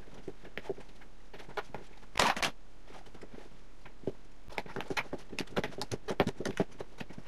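Hands kneading soft, sticky yeast dough in a plastic bowl: a patter of short squishes and slaps, with a louder burst about two seconds in and a quick run of them in the second half.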